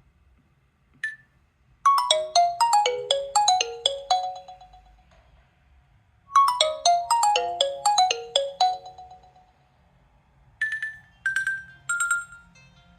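Nokia 3.1 Plus stock ringtone: a quick run of bell-like notes tumbling down in pitch, played twice with a short gap between. Near the end a different tone pattern begins, with three spaced single notes each a step lower.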